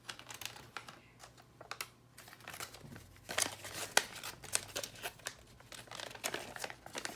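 Crinkling and rustling of LEGO set packaging and the paper instruction booklet being handled, with many small clicks; sparse at first, busier from about three seconds in.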